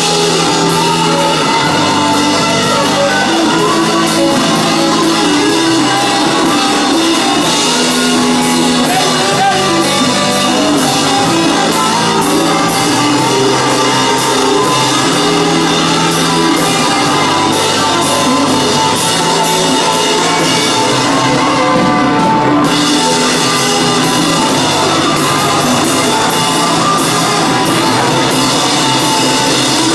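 Live rock band playing loudly: electric guitars and a drum kit with singing, steady throughout.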